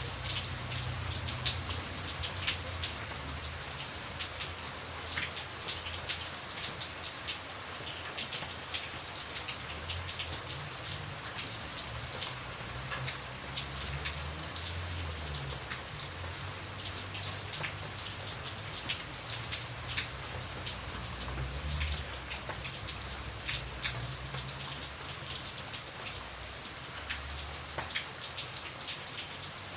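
Light rain falling steadily: a soft hiss dotted with many individual drops ticking on a hard surface, with a low rumble that swells and fades underneath.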